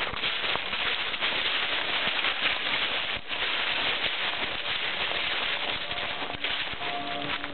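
Crackling rustle of footsteps through dry fallen leaves. A few held musical notes come in faintly near the end.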